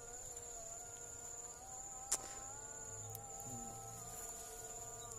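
A flying insect buzzing, a steady hum that wavers slightly in pitch, over a constant high-pitched insect whine. There is a single click about two seconds in.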